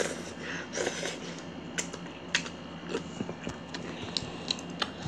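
A child eating Chapagetti black-bean-sauce noodles close to the microphone: slurping and chewing mouth noises, with a few short sharp clicks scattered through.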